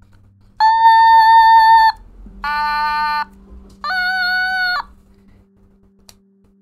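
Otamatone electronic toy synthesizer played in three held notes, each about a second long and at a different pitch; the last note bends slightly.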